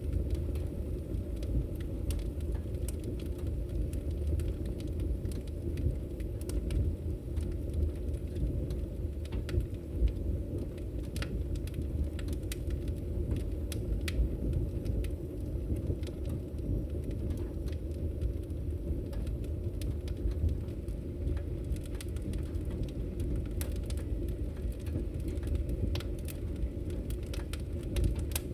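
Fire crackling: a steady low rumble of burning with scattered sharp pops and snaps, one louder crack about ten seconds in.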